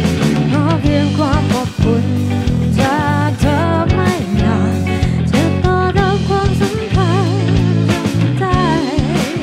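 Live pop band: a woman sings a melody with vibrato over electric bass and electric guitar, with a steady beat.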